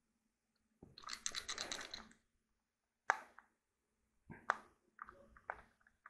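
Small screwdriver turning in a stuck screw in a plastic fidget cube: a scratchy, rapid clicking grind for about a second, then a few separate clicks.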